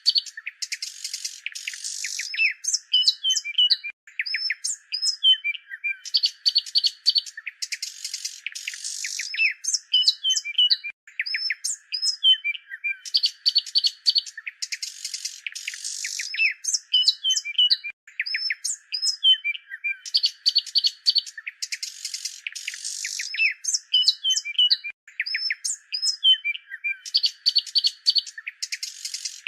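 Small songbirds chirping and twittering in quick, overlapping calls, with a loud flurry of rapid chirps coming back about every seven seconds.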